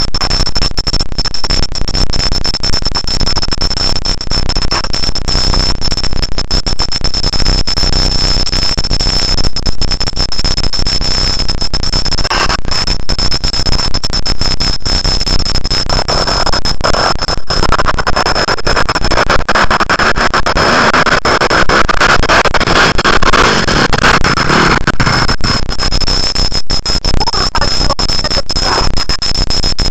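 Loud steady hiss and dense crackle with a constant high-pitched whine: electronic noise from a cheap camera's recording that swamps the scene. A louder, mid-pitched stretch of sound rises over it about half-way through.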